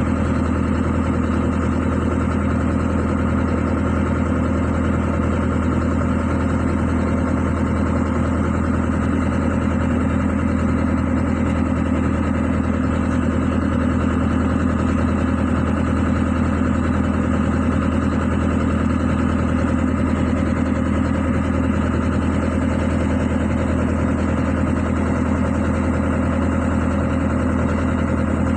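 Excavator's diesel engine idling steadily.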